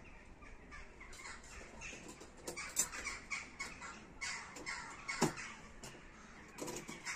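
Light metal clinks and knocks of a small folding sheet-metal wood stove being handled and set up, with harsh bird calls now and then in the background.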